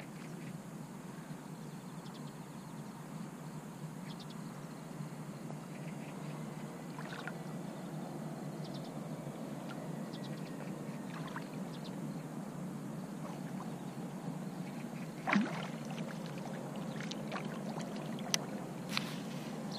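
Water lapping and sloshing steadily at the waterline of a small boat on a lake. There are scattered light clicks, one louder knock about fifteen seconds in, and two sharp clicks near the end.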